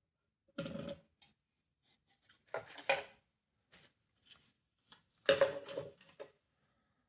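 Clicks, scrapes and clatters of small hard parts being handled as a smoke detector is taken apart, in three main bursts (about a second in, around three seconds in, and from about five seconds in) with lighter ticks between.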